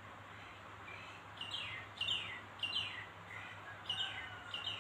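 A bird chirping: a run of short, sharp chirps that each slide down in pitch, often in quick pairs, starting about a second and a half in, over a faint steady hiss.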